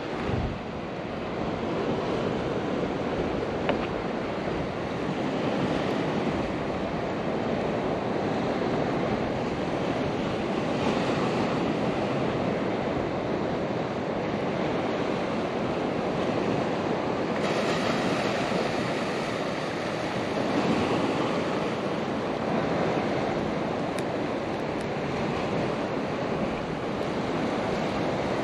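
Ocean surf washing steadily, rising and falling gently, with wind buffeting the microphone.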